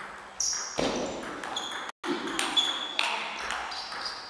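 Table tennis rally: sharp clicks of the celluloid ball off the rubber bats and the table, roughly every half second to a second, several with a short high ring and echo from the hall. A duller thump comes about a second in.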